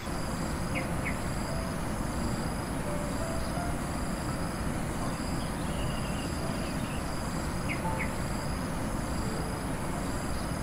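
Insects trilling in the countryside: a steady high-pitched whine with a pulsing chirr beneath it, over a constant rushing background. Short chirps, likely from a bird, come about a second in and again near eight seconds.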